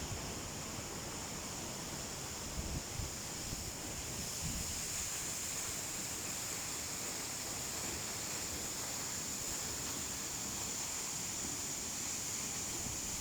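Steady rushing of a waterfall, with wind buffeting the microphone in a few short low gusts about three seconds in.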